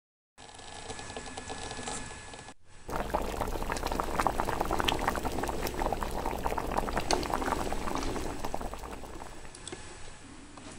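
Water at a rolling boil, a dense crackle of bubbles that comes in about three seconds in and eases off near the end.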